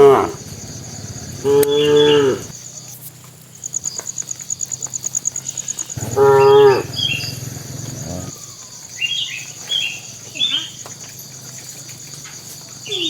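Cattle mooing: two long moos, one about two seconds in and one about six seconds in, over a steady high insect chirring.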